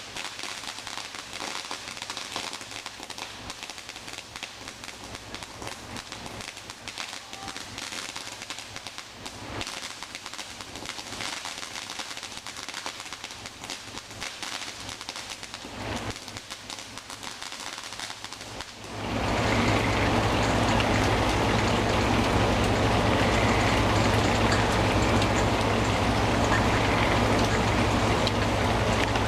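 Rain falling steadily, an even hiss with scattered faint pops. About two-thirds of the way in, a much louder steady rushing noise with a low hum starts abruptly and holds until it cuts off near the end.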